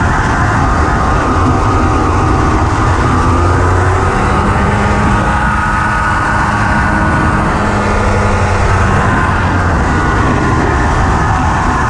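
Honda FL350R Odyssey buggy's single-cylinder engine running steadily under way, heard from the driver's seat, its pitch shifting up and down a little with the throttle around the middle.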